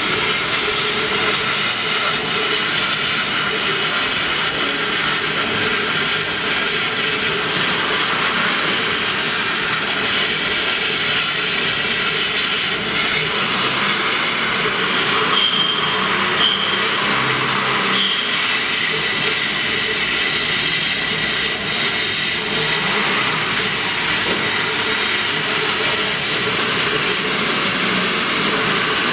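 Laser cutting machine at work cutting a 3 mm sponge sheet: a steady hiss with a lower hum beneath.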